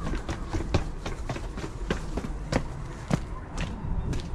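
Brisk footsteps of a person walking down outdoor stone steps and onto a gravel path, about two to three steps a second.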